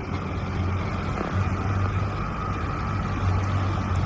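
Outboard motor on an inflatable boat running steadily, a low drone with a faint higher whine above it.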